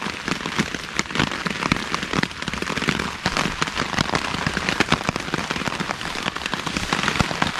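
Rain falling on a tarp shelter: a dense, irregular patter of drops that keeps on steadily.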